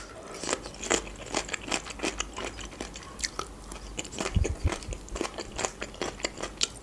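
Close-miked chewing of a crunchy bite of raw fresh food, with sharp crunches coming several times a second. A few dull low bumps come about four and a half seconds in.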